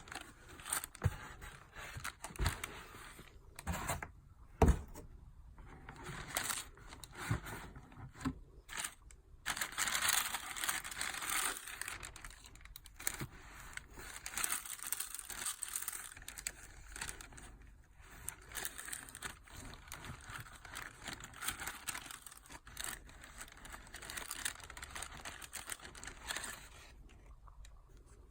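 Paper packaging from a sneaker box being handled, crinkling and tearing. Several sharp knocks and thumps come in the first nine seconds, followed by a long stretch of steady rustling.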